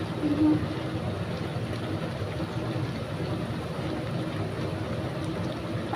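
Chicken liver and gizzard curry frying in a pan with a steady sizzle.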